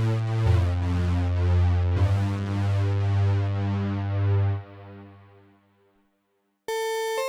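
Akai AX60 analog synthesizer playing a bass-heavy pulsing patch with changing notes, which dies away to silence about five seconds in. A new, brighter patch with clear held notes starts near the end.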